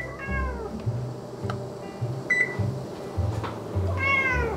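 Electronic beeps from a Whirlpool electric range's control panel as a cooking timer is set: one at the start and another about two seconds later. A cat meows just after the first beep, and again, louder, near the end.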